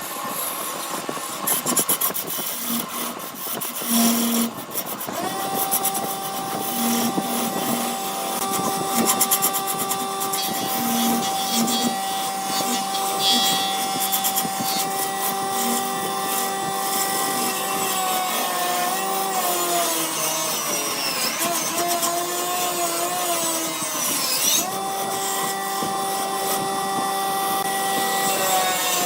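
Wood lathe running while a turning tool cuts the spinning wood, with a steady whine over scraping. The whine wavers and dips in pitch for a few seconds past the middle, then settles again.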